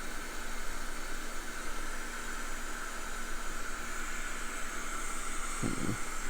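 Hot air rework station blowing with a steady hiss while a small inductor is being reflowed onto the board. A brief low bump near the end.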